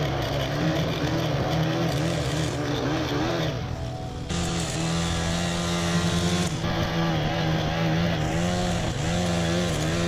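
ATOM 561 petrol lawn edger running hard, its blade cutting along a concrete path edge and throwing dust; the engine note dips and recovers as the blade bites into the grass and soil. The sound gets louder about four seconds in.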